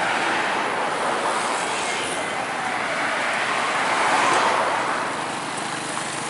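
Roadside traffic noise from a tour bus and motorcycles moving past, with no horn. A truck passes close about four seconds in, the loudest moment.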